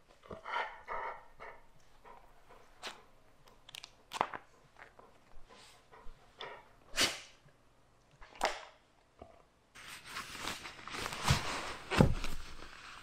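A dog gives several short, separate barks and whines spread over several seconds. About ten seconds in, work boots step and thud on a porch rug over louder outdoor background noise.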